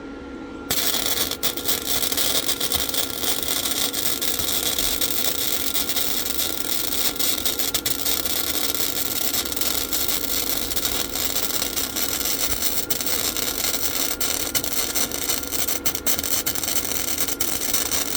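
Lincoln flux-core wire-feed welder arc crackling and sizzling through one long continuous bead. It starts about a second in and stops abruptly at the end.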